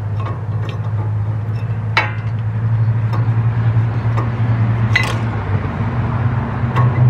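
A few light metallic clinks as new brake pads are worked into the front brake caliper bracket of a van, over a steady low hum.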